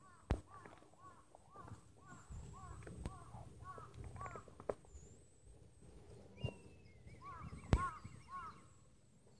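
Birds calling: short, arching calls repeated a couple of times a second, with a brief higher twitter near the end. Three sharp knocks stand out, the loudest near the end.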